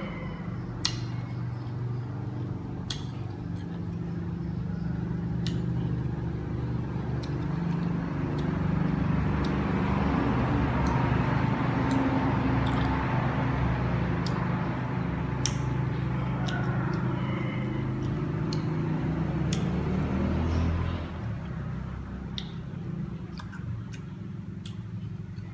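Crisp crunching and sharp clicks as green June plums are bitten and chewed. Under it runs a steady low hum, which swells for several seconds and falls back abruptly about twenty seconds in.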